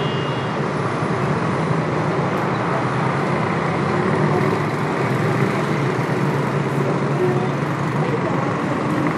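Steady, dense road traffic on a busy multi-lane city avenue: a continuous wash of car engines and tyre noise, with vehicles passing close.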